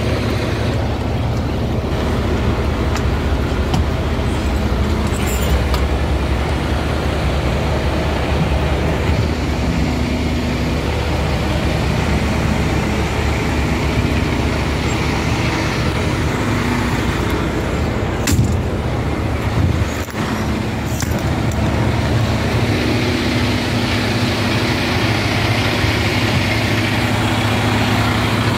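Freightliner fire-rescue squad truck's diesel engine idling steadily, with a couple of sharp knocks about two-thirds of the way through.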